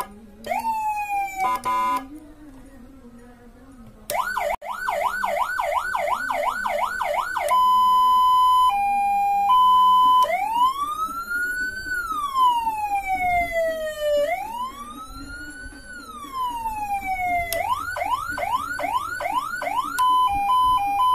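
Senken electronic siren, fitted with a new CJB 100BD program IC, running through its tones under test. A short falling chirp comes first, then a fast yelp at about three sweeps a second, then a two-tone hi-lo, then a slow wail that rises and falls twice. Near the end the yelp returns and then a quicker hi-lo.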